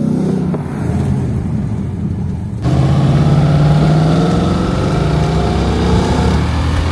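Ford Mustang GT's 5.0-litre V8 running under throttle, first heard from inside the car. After an abrupt cut about two and a half seconds in, it is heard from behind, louder, its exhaust note rising slowly in pitch as the car accelerates away.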